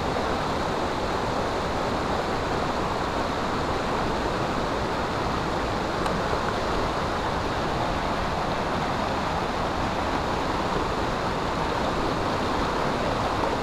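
Waterfall rushing steadily: an even roar of falling water with no change in level.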